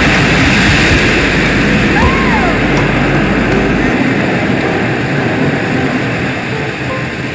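Attraction soundtrack through theatre speakers: a dense rushing sound under stormy-sea projections. A deep rumble drops away about four seconds in. About two seconds in comes a brief whistle-like tone that rises and then falls.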